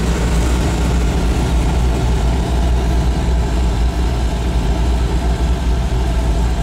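Oil burner of a Dulac oil furnace running steadily with a low rumble, firing normally with a good flame.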